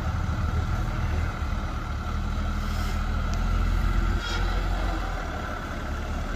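Off-road trial 4x4's engine running under load as the vehicle crawls up out of a hole onto a dirt mound: a steady low rumble that grows louder toward the middle, then eases a little.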